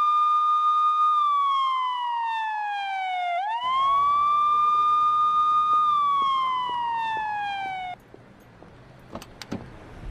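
Portable car-roof siren wailing: a high steady tone slides down, sweeps quickly back up, holds and slides down again, then cuts off about eight seconds in. A low rumble runs under the second half, and a few light clicks follow near the end.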